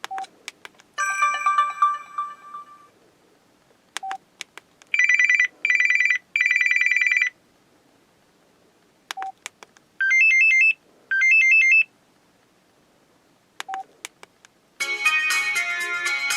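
Samsung Convoy 4 phone's built-in ringtones previewed one after another: a short click and beep, then a ringtone that plays briefly and stops, four times over. First a chime, then three bursts of electronic ringing, then two warbling trills, and near the end a fuller musical tune starts.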